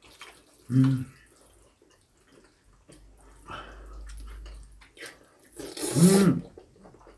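Two people eating black-bean-sauce noodles: wet slurping and chewing, with a short voiced murmur about a second in and a loud slurp mixed with a voiced sound around six seconds in.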